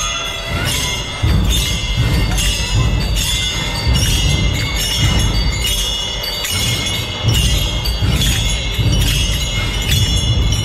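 Many small brass hand cymbals (tal) clashed together in a steady rhythm, about two ringing strikes a second, with a low beat pulsing underneath.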